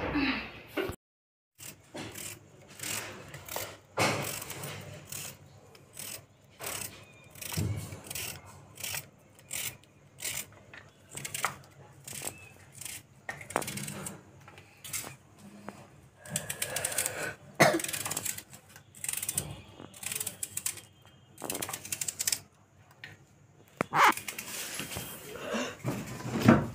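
Irregular knocks, clicks and clatter of kitchen handling: utensils and objects being set down and moved, with the phone being handled.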